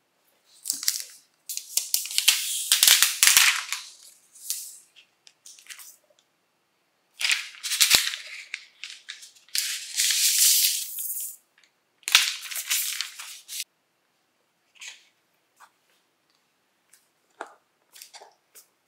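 MacBook Pro packaging being handled: cardboard box parts and protective wrap rustling and scraping in several bursts, with a few sharp knocks among them. Only a few faint clicks follow in the later part.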